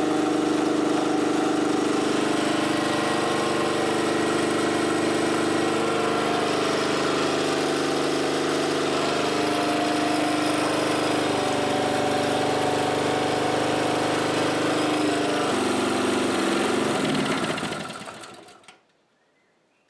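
MC2700 portable gasoline generator running steadily under load from an electric fan heater. About 15 seconds in its engine note drops, and over the next three seconds it dies away and stops, the engine running out of its measured half litre of fuel.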